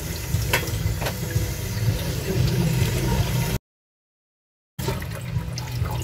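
Tap water running into a steel basin while goat offal is rinsed and sloshed about by hand, with a few small knocks. It cuts to dead silence for about a second just after the middle.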